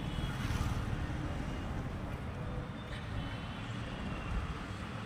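Busy city street traffic: motor vehicles running past in a steady low rumble.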